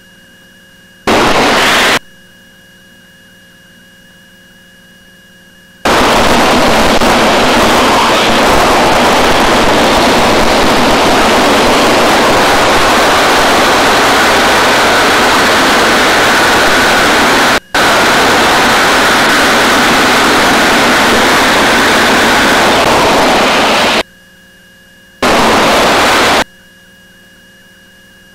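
Aircraft radio and intercom audio with no speech: loud hiss that cuts in and out abruptly, in one long stretch of about eighteen seconds and two short ones, over a much quieter background with a few faint steady tones.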